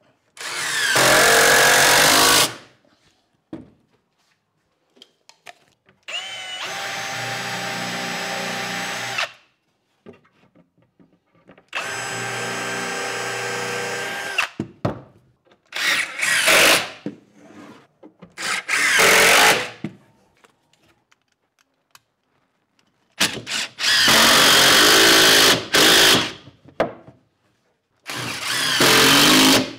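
Cordless drill driving screws into plywood and timber in a run of loud bursts of one to three seconds each, with pauses between them. Twice a motor runs steadily at a lower level and a constant pitch for about three seconds.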